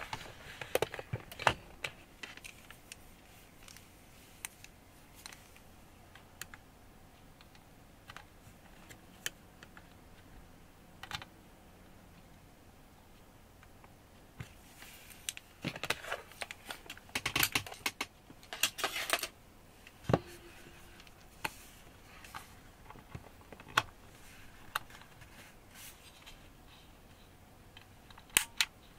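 Scattered light clicks and taps of hands handling an opened guitar effects pedal and multimeter test probes, with a busier stretch of clatter about halfway through and a quick run of clicks near the end.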